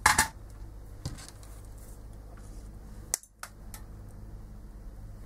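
Short clatter of small tools and wires being handled and set down on a workbench mat, loudest right at the start. Faint clicks follow about one and three seconds in, over a low steady hum.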